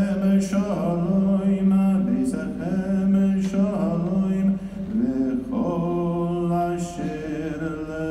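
Slow chant-like singing: long held notes, each new one reached by sliding up in pitch.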